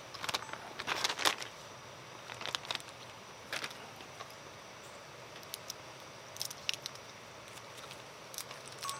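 Faint steady hiss of a camp gas stove burner under a square aluminium pot, with scattered light clicks and clinks as the pot and its metal lid are handled and the lid is set on.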